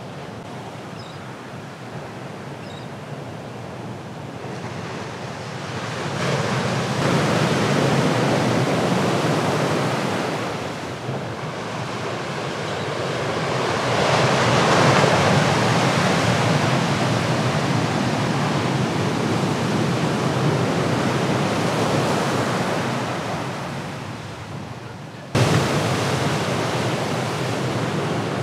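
Ocean waves breaking: a rushing surf noise that swells twice and eases, then jumps suddenly louder near the end.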